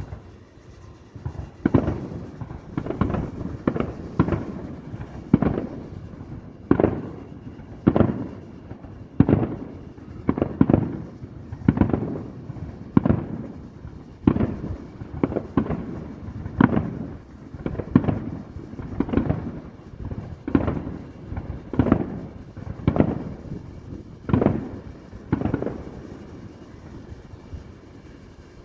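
Aerial fireworks shells bursting in a rapid run of booms, about one a second, starting about a second and a half in. Each boom trails off briefly before the next.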